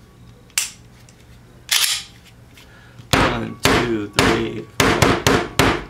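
A Glock pistol being struck hard against the edge of a workbench, giving a series of sharp knocks: two spaced apart, then a quicker run of about seven. It is a jar test of a newly built trigger group, checking that the trigger safety tab holds and the striker does not release.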